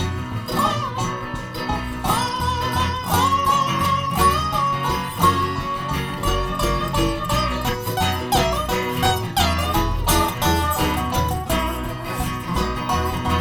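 Live acoustic bluegrass band playing an instrumental break: a sliding, wavering lead melody held over strummed guitar and a steady bass line.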